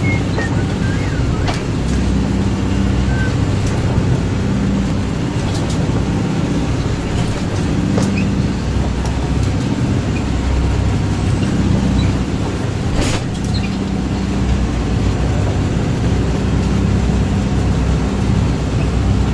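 Pilot boat's engines running steadily under way, a loud, even low drone heard from inside the wheelhouse. A few short sharp knocks stand out over it, around a second and a half in, near the middle, and about two-thirds through.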